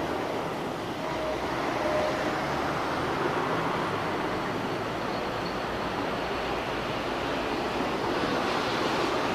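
Narrow-gauge passenger carriages rolling slowly past on the Ffestiniog Railway, a steady even noise of wheels running on rail.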